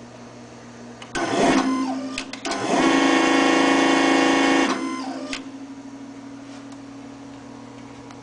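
REXA electraulic actuator's motor-driven hydraulic pump whining as the actuator strokes. It comes in two runs: a short burst about a second in, then a longer steady run of about two seconds that stops abruptly. A steady low machine hum continues underneath.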